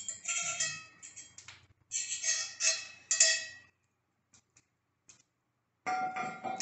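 Cast-iron cookware clinking and ringing as a metal utensil scrapes and taps in a skillet, a string of short strokes; after a brief pause, a louder metal clatter near the end as the pan's cast-iron lid is handled.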